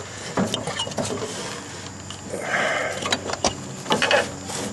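Rubber deck belt of a Hustler Raptor zero-turn mower being worked by hand up over the rim of a steel pulley: scattered clicks and knocks of belt and metal, with a stretch of rubbing about halfway through.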